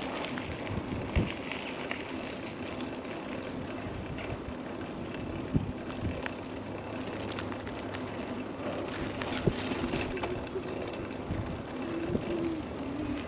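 Mountain bike riding along a lane: steady tyre rolling and wind noise, with scattered clicks and rattles from the bike.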